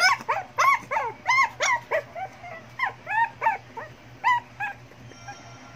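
Shih Tzu whining in a quick string of short, high yelps, loudest over the first two seconds and then sparser and fainter: the dog pleading to be let outside.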